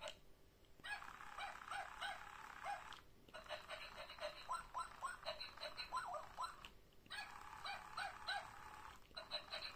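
Simba Chi Chi Love husky walking toy puppy running off its wired remote: a steady gear-motor hiss with short rising yips about three or four a second. It stops briefly every two to three seconds.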